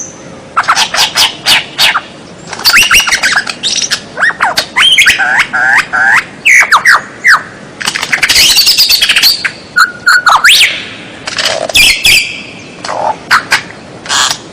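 White-rumped shama (murai batu) singing loudly in fast, varied phrases of sharp clicking notes and quick down-slurred whistles, with short pauses between bursts.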